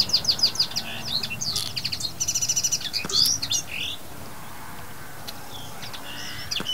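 Small birds chirping and singing: quick runs of high notes, with a fast trill about two seconds in. They thin out after about four seconds, leaving only a few faint chirps.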